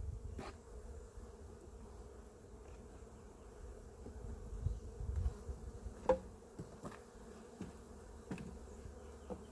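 Honeybee colony buzzing steadily in an open hive, with a few light knocks, the sharpest about six seconds in.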